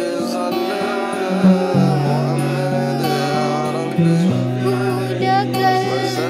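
Music: a singing voice over held low instrumental notes that change pitch in steps, about two seconds in and again about four seconds in.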